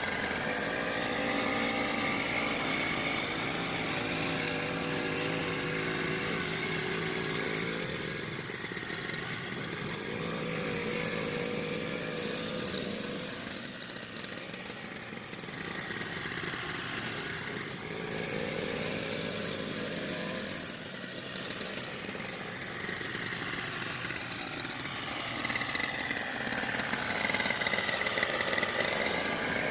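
A small engine running steadily, its pitch slowly rising and falling.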